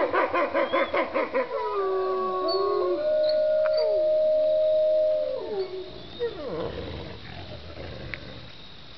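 Wolves howling together, their voices at different pitches. It opens with a fast-wavering, warbling howl for about a second and a half, followed by long held howls, one steady for about two seconds. The howls slide down in pitch and fade out about six seconds in.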